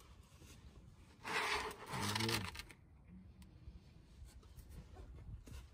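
A protective mat being slid and smoothed over paving stones under a car, with one longer scraping rustle about a second in, followed by a brief wordless vocal sound from the man.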